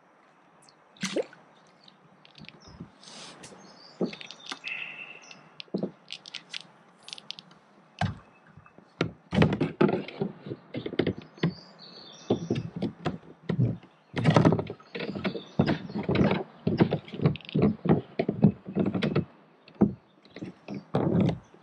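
Irregular knocks and thumps on a plastic kayak hull, a few at first and then many in quick succession from about eight seconds in.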